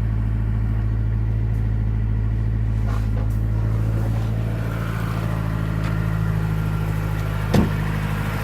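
2009 Mazdaspeed3's 2.3-litre turbocharged four-cylinder idling steadily on freshly replaced spark plugs, a little high, with no knock, just a typical idle. The tone shifts slightly about halfway through, and there is one short thump near the end.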